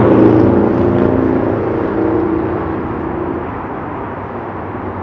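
Motor vehicle running with a steady low engine hum over road noise, fading away over the first few seconds and then holding at a lower level.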